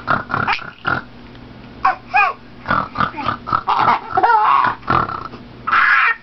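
Pet bird making laugh-like squawks and chuckles in short, broken bursts while being tickled.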